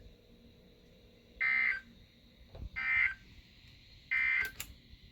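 Emergency Alert System end-of-message signal: three short, loud buzzy bursts of digital data about 1.3 seconds apart, marking the end of the severe thunderstorm warning broadcast.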